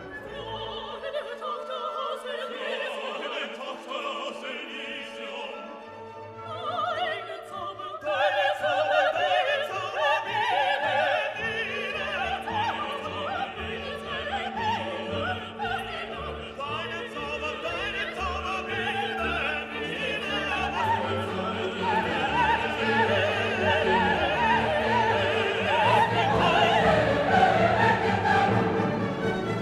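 Classical orchestral music with operatic singing, growing fuller and louder about eight seconds in.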